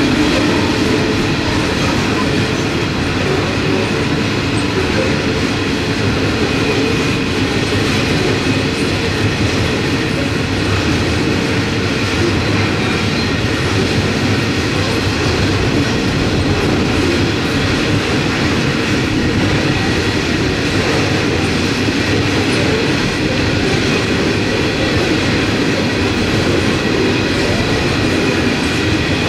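Coal wagons of a long freight train rolling past at steady speed: a steady, unbroken running noise of steel wheels on rail.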